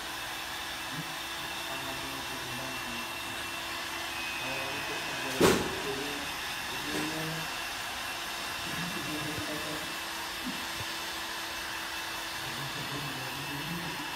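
Electric heat gun running, a steady blowing hiss with a low hum, as it dries screen-printing ink on shirts on the printing pallets. One sharp knock about five and a half seconds in.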